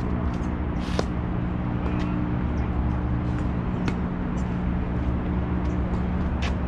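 Tennis racquets striking the ball in a rally: sharp pops, the loudest about a second in and others near two, four and six and a half seconds, over a steady low mechanical hum.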